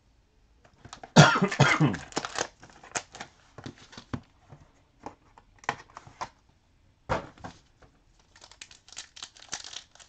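A person coughs about a second in. After that come scattered rustles and clicks as trading-card packs are handled, a single knock just after seven seconds, and crinkling of the pack wrappers thickening near the end.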